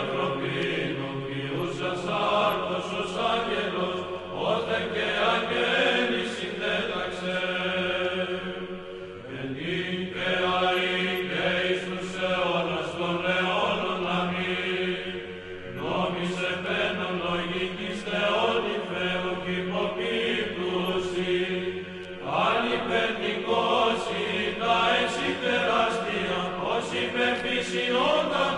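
Orthodox church chant sung by voices over a held drone note, in long phrases with short breaks between them.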